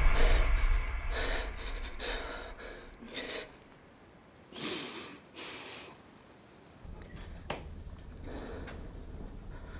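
A woman's heavy, gasping breaths, coming quickly at first and then thinning to a few sharp breaths. A low rumble comes in near the end.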